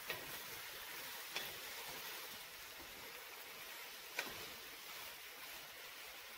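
Vegetables sizzling faintly in hot oil and butter in a metal pot while a wooden spatula stirs them. Three sharp taps of the spatula against the pot: right at the start, about a second and a half in, and loudest a little after four seconds.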